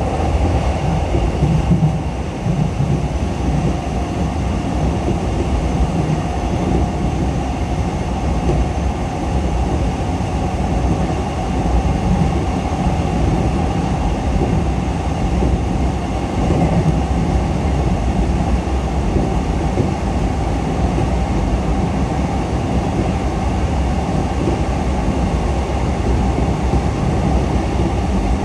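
E233-7000 series electric train running at steady speed: a continuous rumble of wheels on rail with a faint steady whine over it, loudness even throughout.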